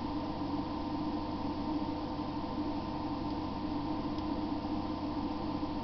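Steady background hum with a faint hiss and a few held tones, the constant noise of the room and recording setup.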